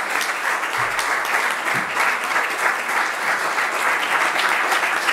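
A small group of people standing and clapping in a large hall: steady, sustained applause.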